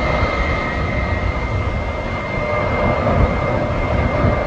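Boeing 777-300's twin turbofan engines at takeoff thrust on the takeoff roll: a steady jet roar with a deep rumble underneath and a constant high whine on top.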